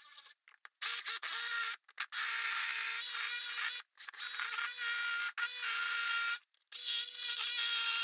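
Cordless jigsaw cutting through a wooden table top, its motor running with a steady whine over the blade's rasping. The saw starts about a second in and runs in stretches, stopping briefly several times.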